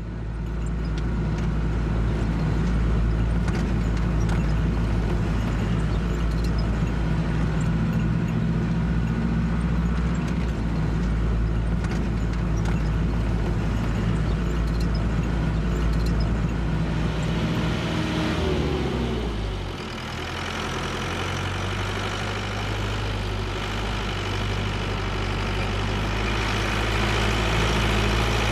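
Minibus engine running steadily on the move. About two-thirds of the way through, its pitch falls as the vehicle slows, and it settles into a lower, steady idle.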